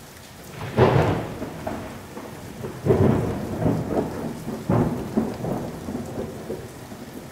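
Rain falling with several peals of thunder, the three loudest about one, three and five seconds in, each dying away slowly.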